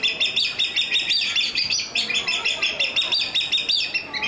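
Crowned hornbill calling: a fast, even run of high piping whistles, about six a second, kept up without a break.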